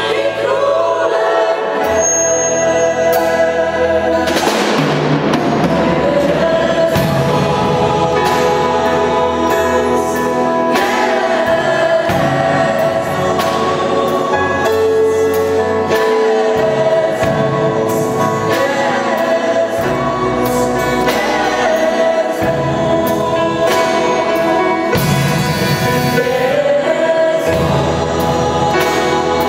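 Mixed choir of women and men singing a worship song together, with low sustained instrumental notes beneath that change every couple of seconds.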